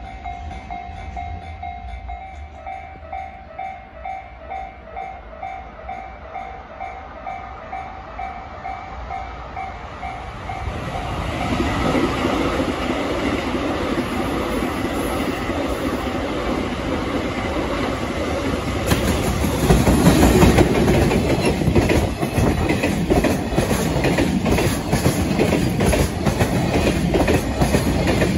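Level-crossing warning bell ringing in a steady repeating pattern about twice a second; about ten seconds in, the rumble of an approaching freight train rises over it. From about nineteen seconds the container freight train, hauled by an EF210 electric locomotive, passes close at speed, its wheels clattering over the rail joints.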